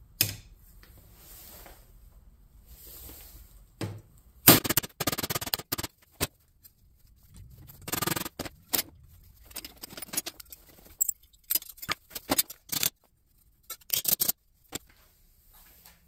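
Hammer striking a small steel sheet-metal part clamped in a bench vise: sharp metallic blows, single knocks at first, then several quick runs of strikes with short pauses between.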